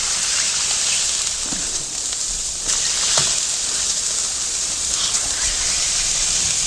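Beef mince sizzling as it is smashed flat onto a red-hot carbon steel plancha: a steady frying hiss, with a couple of brief clicks about three seconds in.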